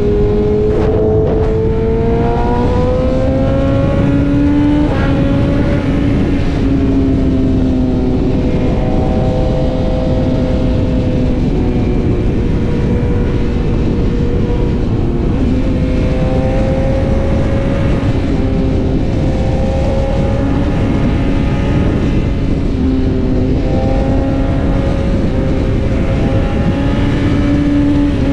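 BMW S1000RR's inline-four engine at highway speed, its pitch rising as the bike accelerates over the first few seconds and then holding roughly steady, with small rises later on. Wind rush over the microphone runs beneath it.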